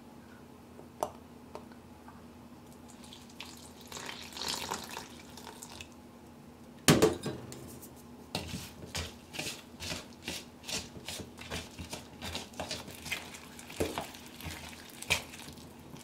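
Silicone spoon stirring a thick, wet dough in a glass bowl: a quick, regular run of scraping, slapping strokes in its second half. A sharp knock against the bowl about seven seconds in comes just before the stirring starts.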